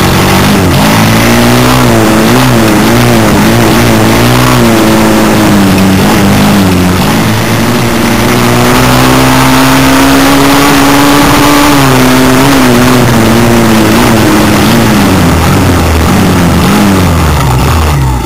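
Small off-road vehicle's engine heard from on board, its pitch rising and falling as the throttle opens and eases. About eight seconds in it climbs steadily to a held high note, then drops back a few seconds later.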